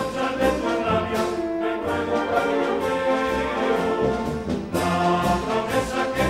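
Charanga brass band playing a tune, with drum hits under the horns.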